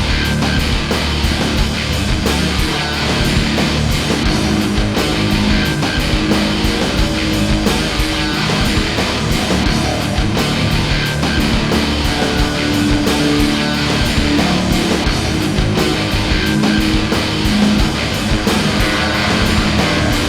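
Loud heavy metal music with distorted electric guitars and fast drums.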